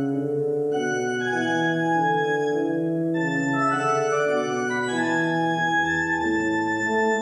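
Church organ played from a two-manual console: sustained chords with slowly moving voices. A deep bass note sounds briefly about five and a half seconds in.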